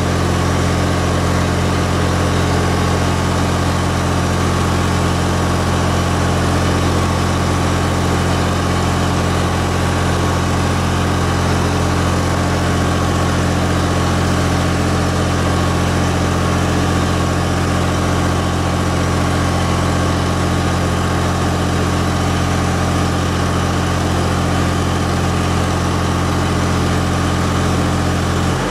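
Miller 400D welder-generator's diesel engine running steadily under heavy electrical load, carrying a house's load of about 65 amps on one leg, well over its rated output.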